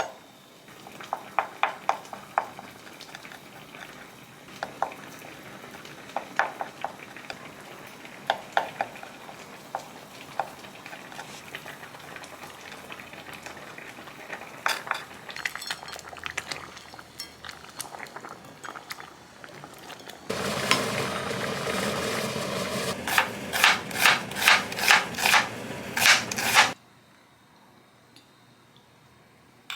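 Kitchen cooking sounds: scattered clinks and taps of utensils against dishes and pans. About two-thirds in, a steady hiss starts, with a run of about eight regular knocks. Everything cuts off suddenly shortly before the end.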